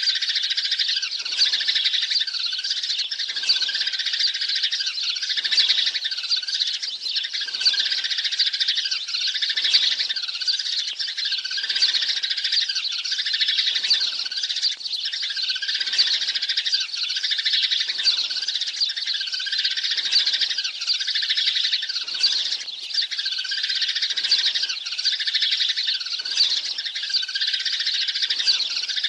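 Many sparrows chirping together in a dense, continuous chatter, with a pattern that repeats about every two seconds. This is a sparrow flock-calling recording used as a decoy call to lure sparrows.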